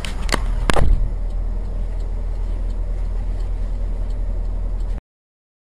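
Inside a car: three sharp clicks in the first second, the last a heavier knock, over the steady low rumble of the engine, which stops abruptly about five seconds in.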